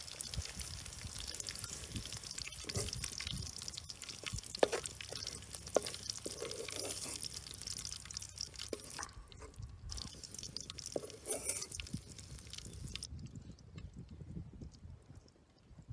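Hot cooking oil crackling and dripping around freshly deep-fried crickets, with scattered small clicks. The crackle cuts off sharply near the end.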